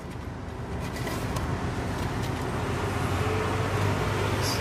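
Motor vehicle noise: a steady low engine hum over road noise, slowly growing louder.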